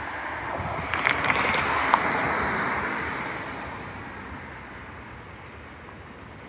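A road vehicle passes close by, its tyre noise rising to a peak about two seconds in and then fading away, with a few sharp knocks near the peak as it rolls over the crossing.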